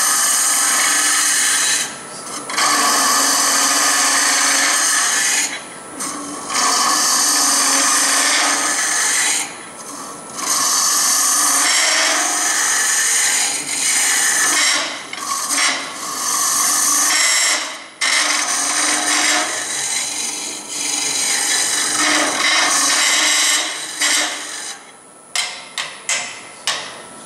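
Wood lathe turning with a tool cutting the spinning wood in repeated passes of a few seconds each, separated by brief pauses. A few short ticks come near the end.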